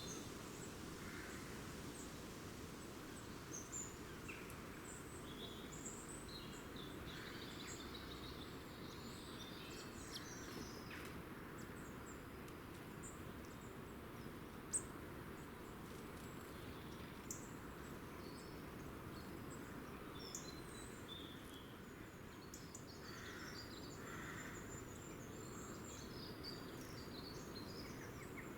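Faint field recording of small birds chirping and trilling, with many short high calls coming and going over steady background noise. A single sharp click stands out about halfway through.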